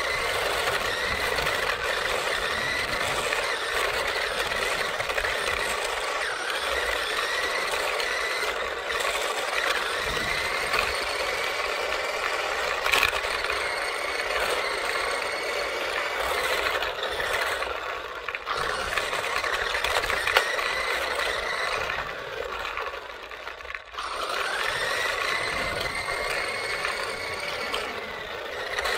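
A small RC car's electric motor whining, its pitch gliding up again and again as the car speeds up, over a steady rattle of the tyres and chassis rolling on rough asphalt, heard from on board the car. A few sharp clicks come through, and the sound drops briefly near the end as the car slows.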